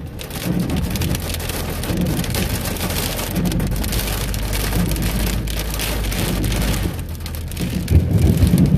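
Heavy rain mixed with ice pellets pelting the roof and windshield of a moving car, heard from inside the cabin as a dense, steady patter of tiny impacts over the low hum of the car.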